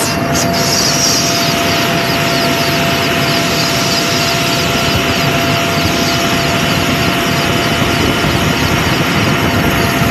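Helicopter in flight heard from inside the cabin with the door open: a loud, steady din of rotor and engine noise with a faint constant whine running through it.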